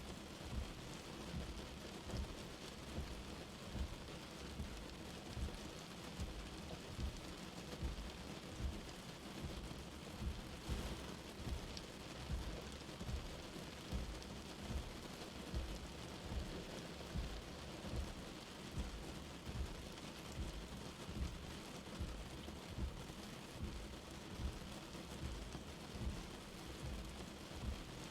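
Light rain falling: a steady soft hiss of drops, with a low thud about once a second.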